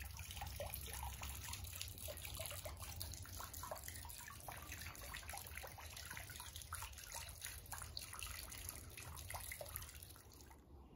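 Water trickling and dripping in many small quick splashes, over a low steady rumble.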